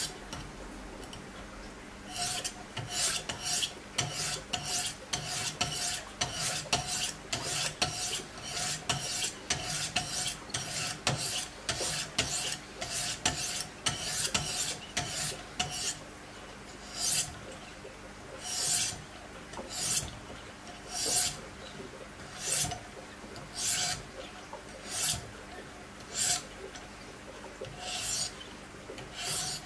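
400-grit diamond stones of a Wicked Edge guided sharpener stroked along the edge of a Spyderco fixed-blade knife in CPM-S90V steel, each stroke a short rasping scrape. The strokes come quickly, about two a second, then slow to about one a second a little past halfway.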